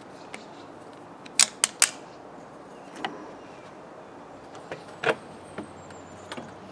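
Sharp clicks and knocks of hand tools and small metal parts being handled: a quick group of three about a second and a half in, then scattered single knocks, the loudest about five seconds in.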